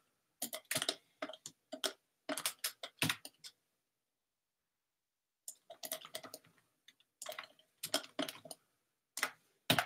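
Computer keyboard keys and mouse buttons clicking in quick flurries of several clicks a second, with a pause of about two seconds in the middle, as Blender shortcut keys are pressed and faces are selected.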